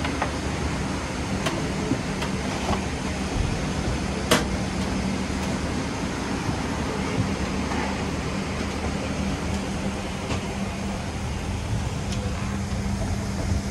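Steady airliner cabin noise inside a Boeing 777-200: the air-conditioning and ventilation running, with a low steady hum under it. A few light clicks sound through it, the sharpest about four seconds in.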